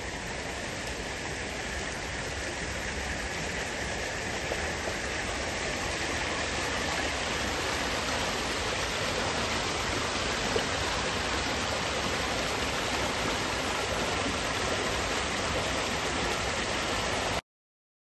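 Small rocky stream running over stones: a steady rush of water that grows slowly louder, then cuts off suddenly near the end.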